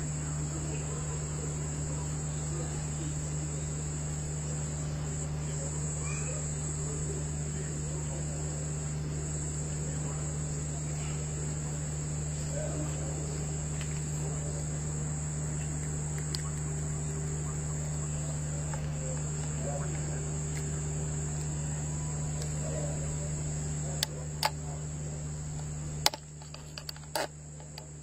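Insects chirring steadily at one high pitch, over a steady low hum. A few sharp clicks come near the end, and the hum drops away shortly before the end.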